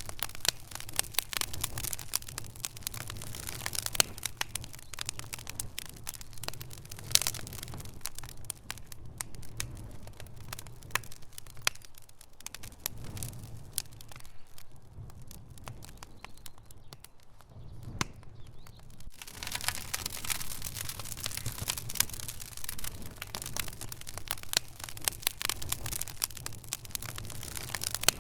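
Fire crackling: dense sharp pops and snaps over a steady low rumble, thinning to sparser, softer crackles for about ten seconds in the middle before picking up again.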